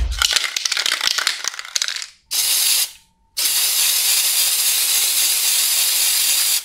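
Aerosol spray paint can rattling as it is shaken, for about two seconds. Then comes a short burst of spray hiss, and after a brief pause a long, steady spray hiss.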